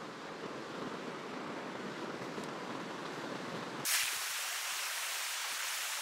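Stream water rushing over rocks as a steady noise. About four seconds in it changes suddenly to a brighter, hissier rush.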